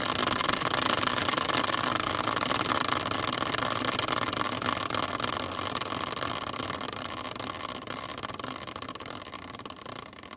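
Hand-spun caster wheel, used as a team-picker wheel, whirring and rattling on its bearing, growing gradually quieter as it slows toward a stop.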